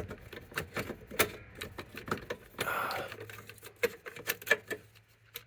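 Irregular light clicks and taps of plastic dashboard trim and instrument cluster parts being handled, with a faint hum coming in about halfway.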